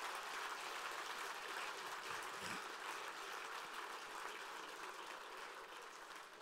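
Audience applause, an even patter of many hands that slowly dies away toward the end.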